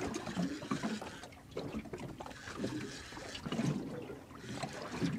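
Sea water lapping and slapping against the hull of a small boat drifting at sea, in irregular splashes about once a second.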